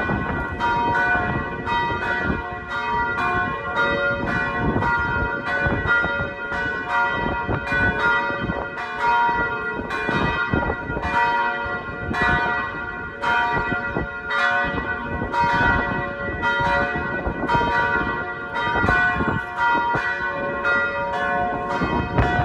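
Church bells ringing the noon peal, several bells of different pitch struck in quick, irregular succession so that their ringing tones overlap.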